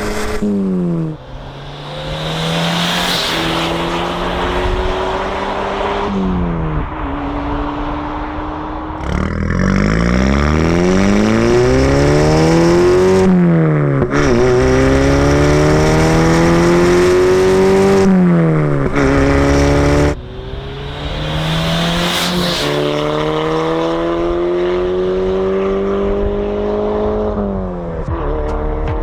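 VW MK5 GTI's turbocharged four-cylinder with an aftermarket exhaust, accelerating hard through the gears: the exhaust note climbs in pitch and drops sharply at each upshift, several times over.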